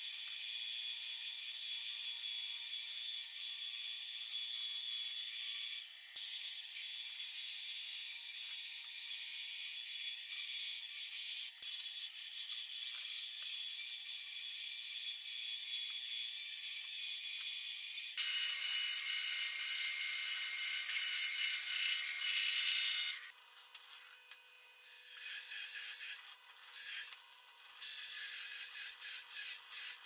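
A woodworking tool working wood: continuous, thin, high-pitched scraping that changes character about two-thirds of the way through, then drops to quieter, intermittent scraping and clicks for the last several seconds.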